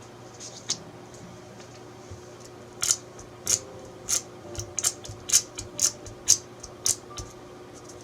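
A run of crisp, sharp clicks and taps, like hard plastic or glass being handled, about a dozen at irregular spacing, starting about three seconds in.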